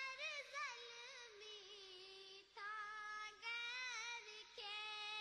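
A woman singing solo in a high voice: a slow melody of long held notes with bending, ornamented turns, broken by brief pauses, with no accompaniment standing out beneath it.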